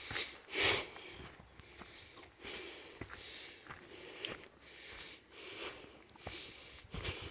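A hiker breathing hard close to the microphone, with footsteps and small snaps on a needle- and root-covered forest path, in a loose walking rhythm. The loudest breath comes about half a second in.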